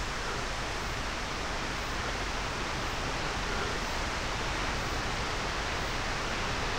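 A steady, even rushing hiss with no breaks or distinct strikes.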